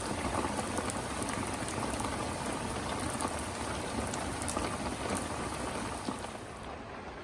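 Rain falling steadily, with many individual drops ticking. It turns quieter and duller near the end.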